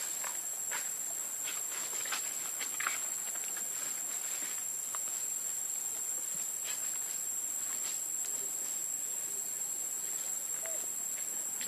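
Insects buzzing steadily in one high, even tone, with faint scattered clicks.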